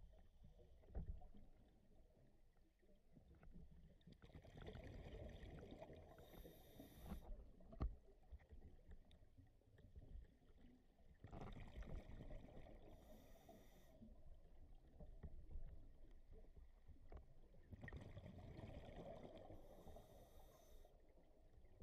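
Scuba diver's regulator breathing, faint and muffled through an underwater camera housing. It comes in three breath cycles about seven seconds apart, each a rush of bubbles ending in a brief higher hiss.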